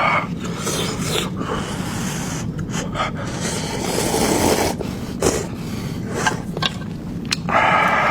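Close-miked eating sounds from a mukbang eater: chewing and mouth noises with many short wet clicks, and a louder burst just at the start and another near the end.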